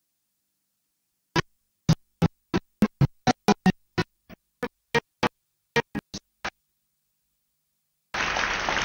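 A slow phrase of about seventeen short, staccato keyboard notes, struck one at a time against dead silence. Room noise from the hall comes in near the end.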